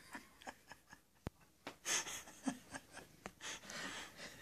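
A cat purring faintly from inside a denim pant leg, heard as soft breathy stretches, with small rustles and clicks as it shifts in the fabric.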